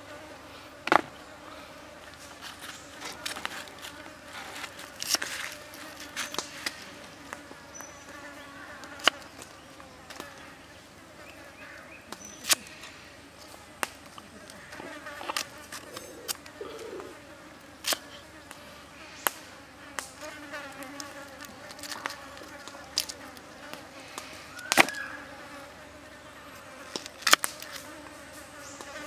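Knife cutting vegetables on a wooden chopping board: sharp, irregular knocks every second or two, the loudest about a second in and near the end, over a steady buzzing of insects.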